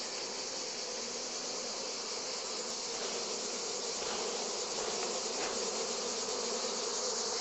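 Honeybees buzzing steadily in and around an open nuc box that is crowded with a strong colony.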